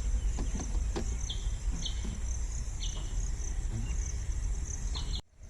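Insects trilling steadily in a rural field, with a few short higher chirps, a steady low rumble underneath and a few faint clicks. The sound cuts out briefly near the end.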